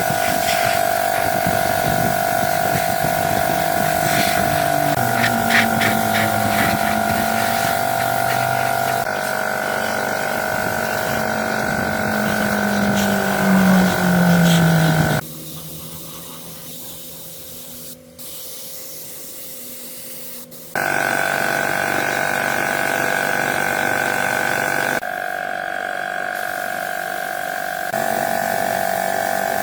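Small electric power tool motors running with a steady whine, their lower pitch sagging and rising under load, in a series of short clips that cut off abruptly several times.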